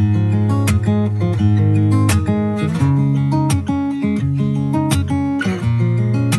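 Background music: an instrumental passage of a pop song led by strummed acoustic guitar with bass, no vocals.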